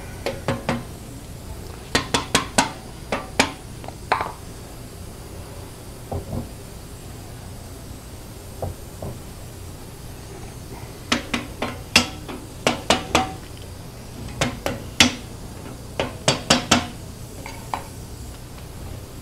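Metal tools and clamp handles clinking and clanking in short groups of quick, sharp strikes while an engine block is being clamped down on a cylinder boring bar machine, over a low steady hum.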